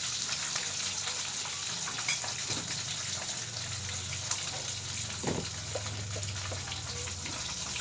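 Hot oil sizzling steadily in a frying pan, with small crackles and pops throughout.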